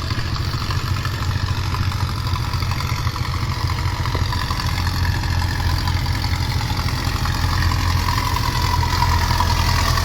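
Engine of a heavy machine, a forklift or backhoe, running steadily at idle with a deep hum; its pitch drifts slightly but never revs up.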